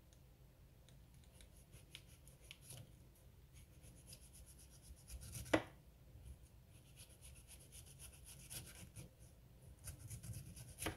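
Chef's knife shaving thin shreds off a hand-held half head of cabbage: a quick run of faint, crisp cutting strokes, with one sharper click about halfway through.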